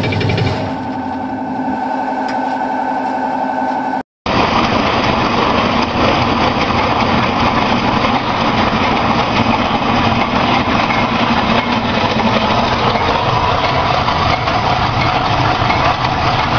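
Nut slicing machine running with a steady mechanical hum. About four seconds in the sound cuts out for a moment and a nut milling machine takes over, running with a dense, even grinding noise.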